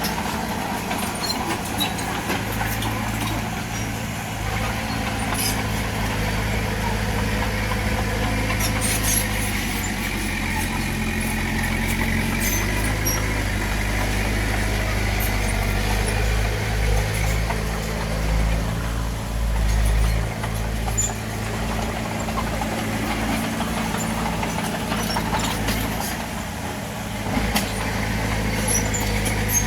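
Bulldozer's diesel engine running steadily, its low rumble rising and falling in strength as it works, with a few sharp knocks now and then.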